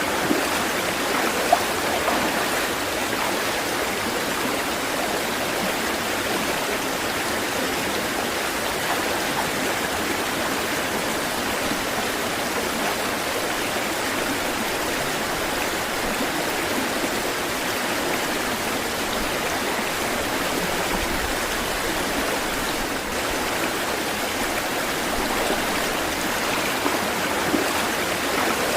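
Running water: a steady, even rush with no rise and fall, and a couple of brief louder spots in the first two seconds.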